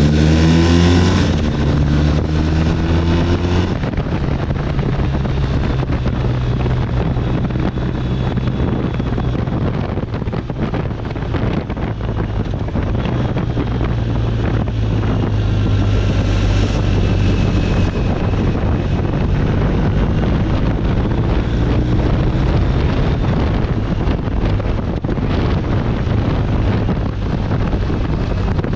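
BMW R1250 RT's boxer-twin engine running at speed on the move, buried under heavy wind noise on the microphone. The revs fall in the first second or so, then the engine runs steadily.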